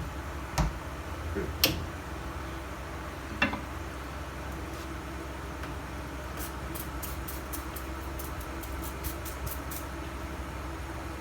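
Three sharp clicks and knocks from toilet tank parts being handled, then a quick run of faint ticks, about four a second, over a steady fan hum.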